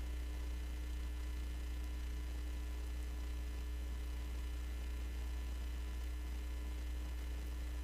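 Steady low electrical hum, like mains hum, with faint thin steady tones above it and no voice coming through.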